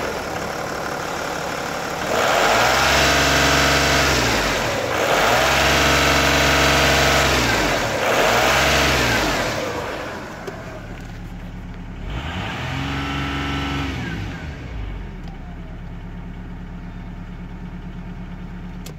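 Volkswagen-Audi 2.5 TDI V6 diesel engine (AKN) blipped four times from idle, each rev rising and falling back, then settling to a steady idle.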